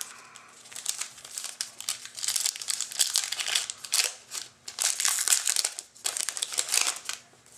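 A hockey-card pack wrapper crinkling and crumpling in the hands as a pack is dealt with between cards, in irregular crackly bunches for several seconds.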